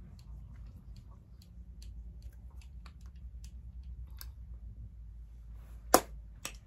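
Chewing gummy prenatal vitamins, with irregular small mouth clicks, and one sharp click about six seconds in.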